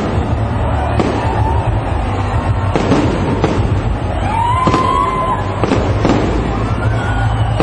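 Fireworks display: aerial shells bursting in a string of bangs, a second or two apart, over a steady low rumble, with a few rising whistle-like tones about halfway through and near the end.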